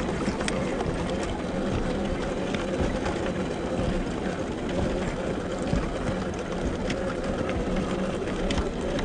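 Scale RC rock crawler (Axial SCX10 II clone) driving over loose stones: its electric motor and geared drivetrain give a steady whine, with scattered clicks and knocks from the tyres and rocks.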